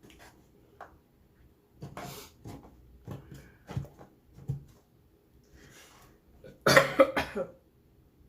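A woman coughing while eating: a few smaller coughs and throat sounds, then a loud run of about four coughs close together near the end.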